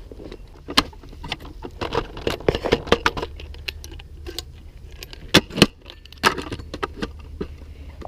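Irregular clatter of small clicks and rattles, like small hard objects being handled, with two sharper clicks about five and a half seconds in.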